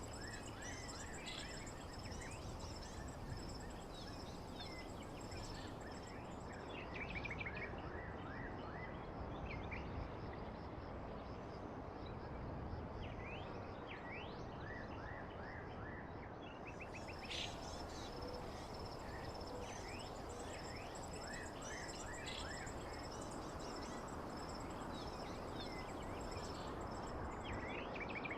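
Nature ambience: many birds chirping and calling in short, quick phrases over a steady, high insect trill and an even background hiss.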